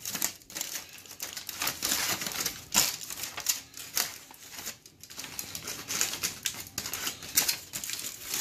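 Aluminium foil crinkling and crumpling as hands fold it closed around a rack of ribs: a dense, uneven run of sharp crackles.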